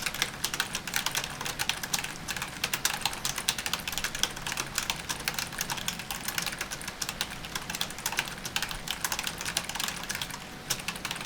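Fast, continuous typing on a computer keyboard: a dense run of key clicks and clacks, thinning briefly near the end.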